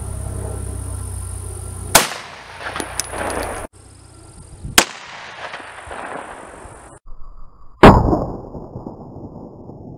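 Beretta APX compact 9mm pistol firing G9 First Response solid-copper rounds: three sharp gunshot reports, about two seconds in, about five seconds in and near the end, the last the loudest with a ringing tail. Background music plays up to the first shot.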